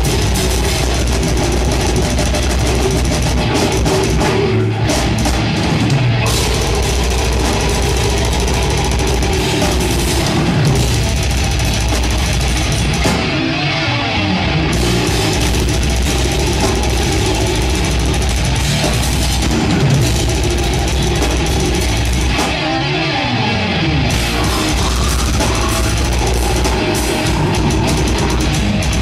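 A death grind band playing live: distorted electric guitars, bass and drum kit in a loud, dense wall of sound. The heavy low end drops out briefly three times, about five, fourteen and twenty-three seconds in.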